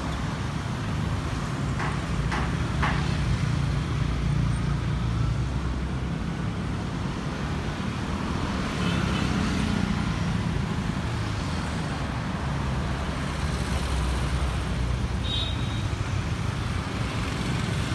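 City street traffic: motor vehicles running and passing in a steady low rumble. A few short clicks come about two seconds in, and a brief high tone sounds near the end.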